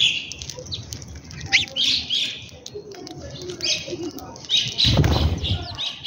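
A flock of house sparrows chirping repeatedly, then a loud rush of wingbeats about five seconds in as the flock takes off.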